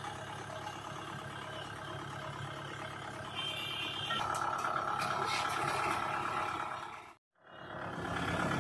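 Tractor diesel engine idling steadily, cutting out to silence for a moment about seven seconds in.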